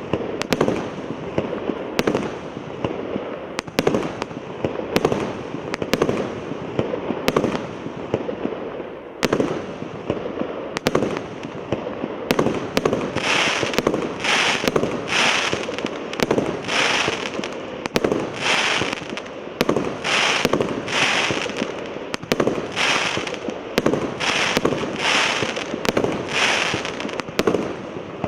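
A fireworks battery (multi-shot cake) firing a steady run of shots, about one a second, over continuous crackling. From about halfway, each shot is followed by a brighter hissing, crackling burst.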